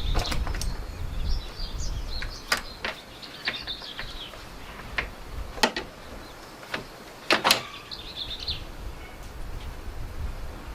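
Birds chirping in the background, with a few sharp clicks and knocks scattered through, the loudest a double knock about seven and a half seconds in.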